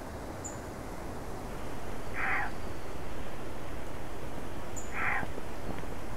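A harsh animal call, heard twice about three seconds apart, over a steady outdoor background hiss that rises in level about a second and a half in. A faint, very high chirp sounds twice as well.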